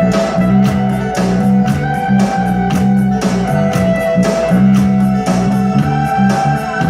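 Music with electric guitar, a bass line and a steady drum beat.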